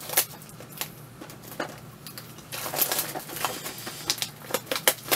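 Plastic shrink-wrap being torn and peeled off a Blu-ray box set: scattered crinkles and snaps, thickening into a denser crackle for a second or so in the middle.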